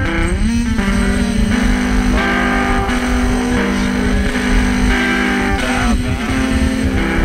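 Lo-fi emo/math-rock recording: electric guitar playing chords with sliding pitches over a dense, noisy low end, the sound of a cassette-recorded noise-rock track.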